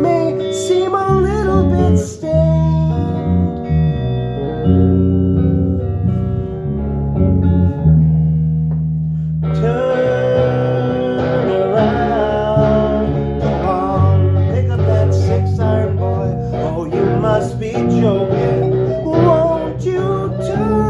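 A band playing a guitar-led song with bass, between sung lines. A sparser stretch gives way, about halfway through, to the full band coming back in.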